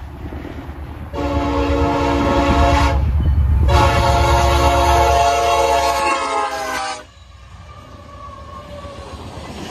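Diesel freight locomotive horn sounding two long blasts over the rumble of the train, the second about three seconds long and dropping in pitch near its end before cutting off suddenly. After that comes the quieter rumble and rattle of locomotives and cars rolling past.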